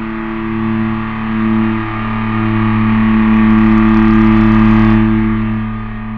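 Horror sound-effect drone: a low, distorted sustained tone held steady throughout, swelling in loudness past the middle and easing off near the end.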